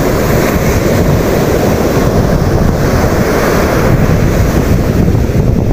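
Steady wind buffeting the microphone together with the rush of breaking surf.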